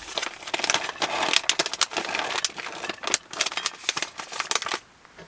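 Crinkling, rustling and clicking of food being prepared by hand: a pouch of precooked rice and utensils handled in quick irregular bursts that stop shortly before the end.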